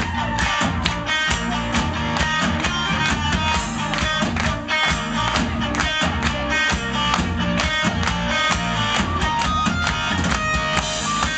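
Live rock band playing an instrumental stretch of a song, guitar to the fore over a steady beat, with no singing.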